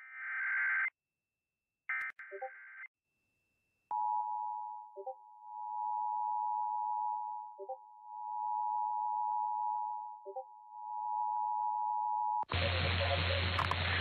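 Emergency Alert System broadcast test: two short bursts of the warbling SAME header data tones, then the EAS attention signal, two steady tones sounding together just under 1 kHz, held for about eight seconds, marking a Required Monthly Test. A radio-quality voice announcement cuts in near the end.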